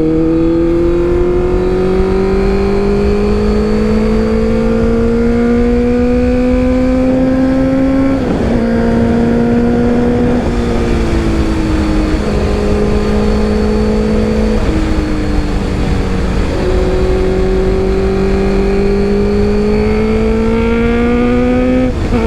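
Honda CBR650F's inline-four through an Arrow full-system exhaust, pulling hard under throttle with its pitch rising steadily. About eight seconds in it drops sharply at a gear change, holds near level with a few small dips, then climbs again through the last third. A steady low rush of wind sits beneath it.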